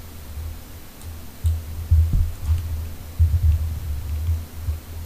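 Low, throbbing bass of background music, pulsing on and off, with a few faint clicks.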